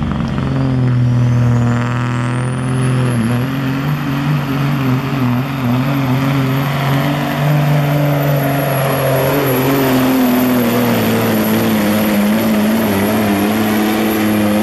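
Semi truck's diesel engine running under full load as it pulls a weight-transfer sled. A high turbo whistle rises over the first few seconds and then holds, while the engine note shifts up and down as the pull goes on.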